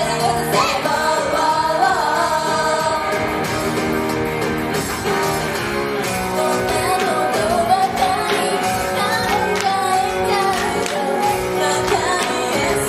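Live pop song performed by a female idol group: the members sing over a loud, full instrumental backing that keeps going without a break.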